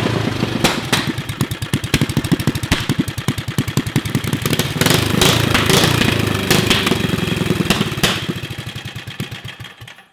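Briggs & Stratton 5 hp single-cylinder flathead engine running loudly on a bench, then slowing and dying out near the end. It smokes as it runs, which the owners guess is from worn piston rings.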